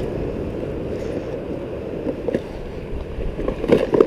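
Steady low rumble of wind buffeting the microphone over the wash of ocean surf, with a few small handling clicks near the end.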